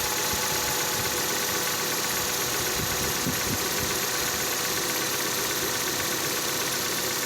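Nissan Terrano's 2.0 F4R four-cylinder petrol engine idling on a cold start, with a thin steady whistle over the running; one of the whistle's two tones drops out about half a second in. The whistle is a cold-start one that lasts about a minute and is almost gone.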